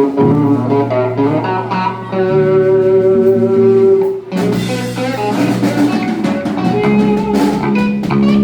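Live rock band playing loudly: electric guitar chords ringing over bass and drums, with a brief drop about four seconds in before the playing carries on.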